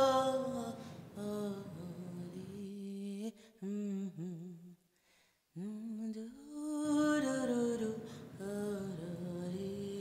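A woman's voice singing a slow melody in long, gliding held notes, breaking off briefly about five seconds in.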